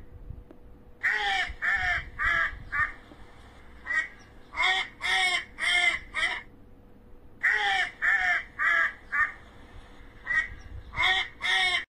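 Mallard duck quacking in four runs of several short, harsh quacks each, with short pauses between the runs.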